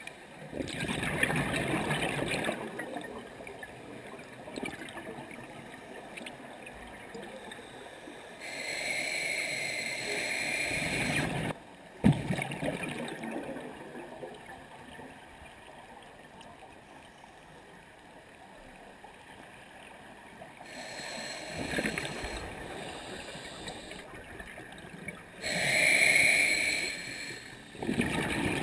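Scuba diver's regulator underwater: exhaled bubbles rush out in noisy bursts a couple of seconds long, every several seconds, with quieter hissing between breaths. A single sharp click sounds about halfway through.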